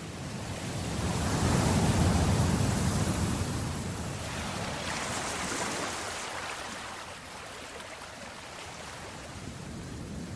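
Sea surf: waves breaking and washing, swelling loudest about two seconds in, again around five seconds, then settling into a lower steady wash.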